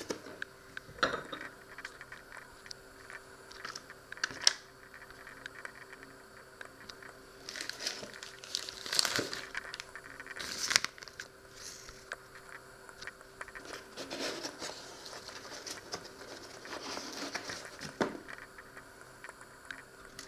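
Plastic food packaging crinkling in irregular bursts as groceries are handled, busiest about halfway through, with a few sharp knocks and a faint steady hum underneath.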